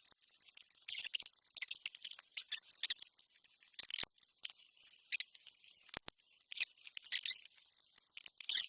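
Close handling noises of wiring work on a compressor pressure switch: irregular crackling and scratching, with a few sharp clicks about four and six seconds in.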